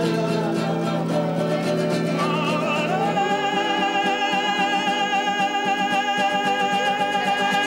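Live folk music: a man singing to a strummed acoustic guitar, with a violin. About three seconds in, a long note is held with vibrato.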